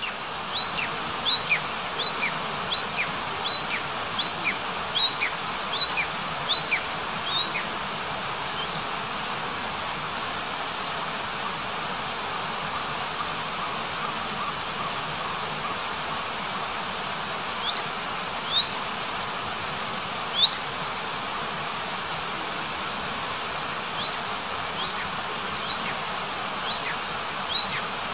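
An animal's short, rising high-pitched chirps, repeated in a quick run of about three every two seconds, falling away about seven seconds in, a few scattered ones later and a run again near the end, over a steady hiss.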